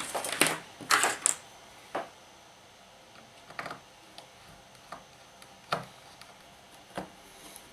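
Small sharp clicks and taps of hands working small metal screws and their cotter-pin-like retainers loose from a portable record player's case. A cluster of clicks in the first second and a half, then single knocks every second or so.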